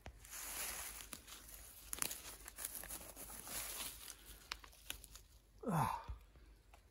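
Dry leaf litter rustling and crunching with small clicks as a large wild mushroom is pulled up from the forest floor by hand. Near the end comes a short vocal exclamation falling steeply in pitch.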